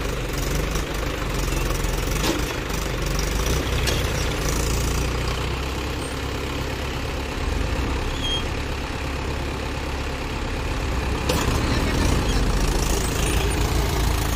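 Tractor diesel engine running steadily at a low speed, a little louder over the last few seconds.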